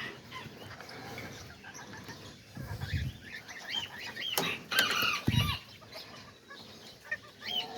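Small aviary birds giving scattered short chirps, mixed with chickens clucking. Two dull thumps come about three and five seconds in.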